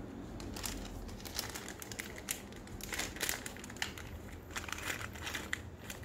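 A small anti-static plastic bag crinkling as it is handled and opened by hand, in irregular crackly rustles starting about half a second in.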